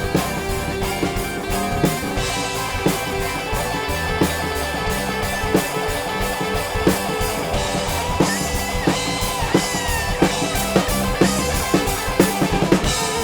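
Rock band instrumental: a drum kit keeping a steady beat under bass and electric guitar, with a lead guitar line bending in pitch partway through.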